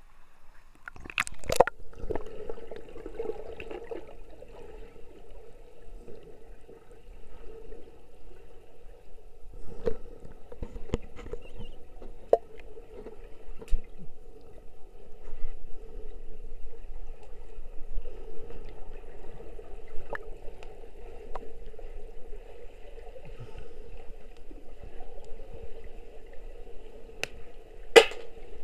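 Muffled underwater sound of a swimming pool picked up by an action camera in its waterproof housing: a steady hum with scattered sharp knocks and clicks, the loudest about a second and a half in and near the end.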